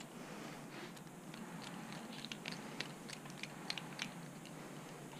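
Faint, irregular small clicks and ticks of a hex driver turning a small screw into an RC truck's torsion bar mount, with small tools and parts being handled; the clicks come thickest from about two to four seconds in.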